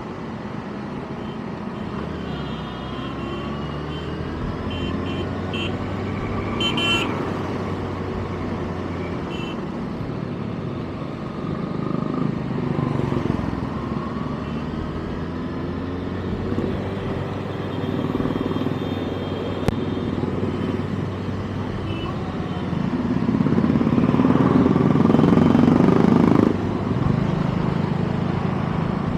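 Kawasaki ZX-6R's inline-four engine running on the road, its pitch rising and falling with throttle and gear changes. It is loudest for a few seconds near the end, then drops back suddenly as the throttle is closed.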